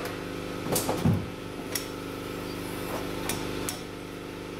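Hood of a 2004 Jeep Grand Cherokee being unlatched and raised: a clunk about a second in, then several light metal clicks as the hood goes up and the prop rod is set. A steady low hum runs underneath.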